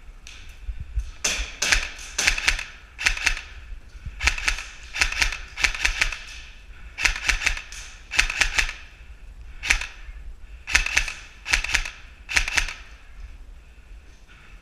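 Airsoft gun fire: rapid, sharp clicking shots in short groups, over and over with brief pauses between.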